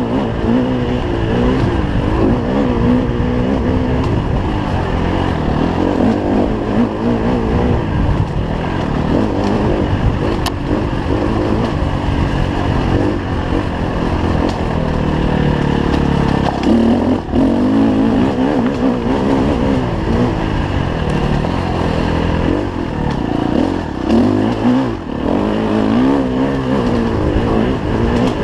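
KTM 250 EXC-F's single-cylinder four-stroke engine under hard riding on a dirt trail, its pitch rising and falling with the throttle and gear changes. It climbs in one long pull partway through, with brief drops when the throttle closes.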